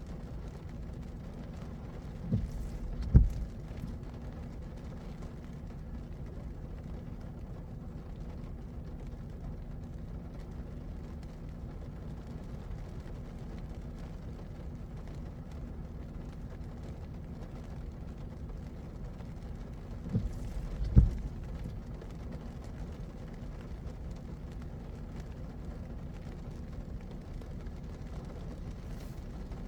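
Car driving on wet roads in the rain, a steady low rumble of road and engine noise. Two pairs of short thumps break through, one a couple of seconds in and another about two-thirds of the way through.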